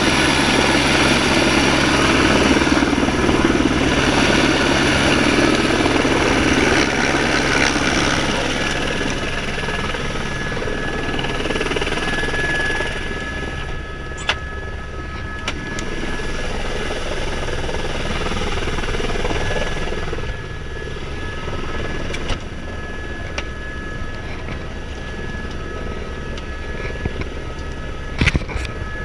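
Helicopter turbine engine and rotor running steadily, heard loud with rotor wash for the first several seconds, then quieter and more muffled from inside the cabin with a steady high whine. A few short knocks sound about halfway through and near the end.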